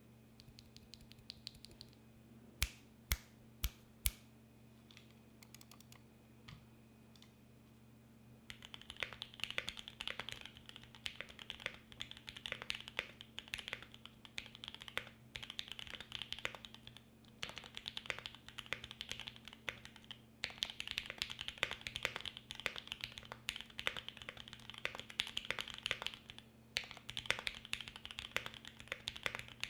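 Typing on a Mode 80 mechanical keyboard with lubed Gateron Black Ink linear switches, an FR4 plate and GMK keycaps. For the first several seconds there are only a few scattered light clicks and four sharp, louder clicks about three to four seconds in. Then steady, fast typing begins at about eight seconds, broken by brief pauses, over a faint steady hum.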